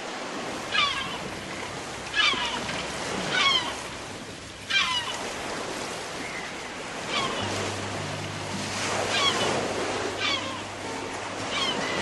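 Sea surf washing steadily, with repeated falling seagull cries, about one every second or two. A low, held music note comes in about seven seconds in, the opening of a song.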